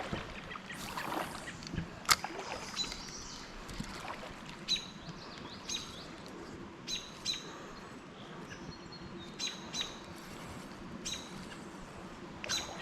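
Small birds chirping, short repeated calls about once a second, over faint outdoor background noise. Two sharp clicks or knocks come near the start and again about two seconds in.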